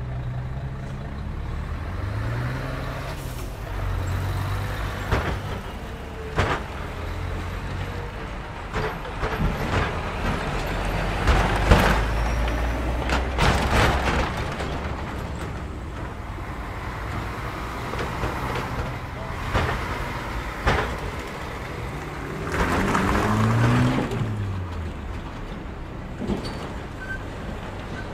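Heavy diesel semi-trucks driving one after another over a road level crossing. Their engines rise and fall in pitch as they pass, with repeated sharp knocks and bangs as wheels and trailers jolt over the rails, the loudest about twelve seconds in.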